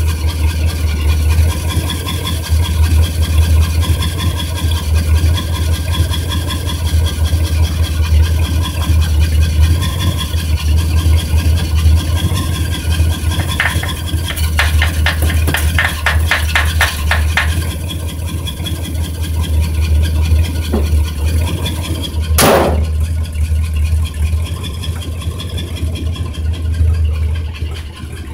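1964 Mercury Montclair's 390 FE big-block V8 idling steadily just after a cold start. A run of quick clicks, about two or three a second, comes a little past the middle, and a single loud knock about four-fifths of the way through.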